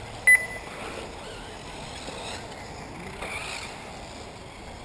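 Faint running of 1/8-scale electric RC off-road buggies, heard as a steady background noise. About a third of a second in comes one short, loud high beep with a click, the loudest sound here.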